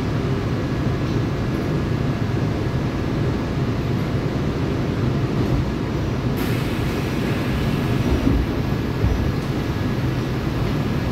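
Seoul Subway Line 4 IGBT-inverter electric train running, heard inside the passenger car as a steady low rumble of wheels and running gear. A hiss joins in about six seconds in.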